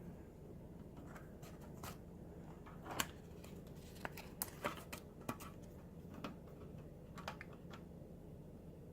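Scattered light clicks and scratches from a microwave keypad's flat ribbon cable and plastic connector being handled and worked into its port on the control board, which it does not enter easily. The clicks are irregular, and the loudest comes about three seconds in.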